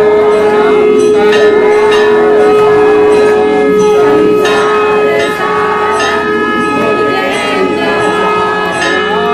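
Ringing of hand bells during a Hindu aarti, struck again and again, with voices behind. A long steady tone is held through roughly the first five seconds, then stops.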